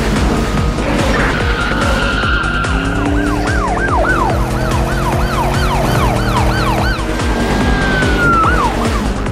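Police siren: a steady tone, then a fast yelp rising and falling about three times a second, then a long held wail that drops away near the end. Music with a steady beat plays underneath.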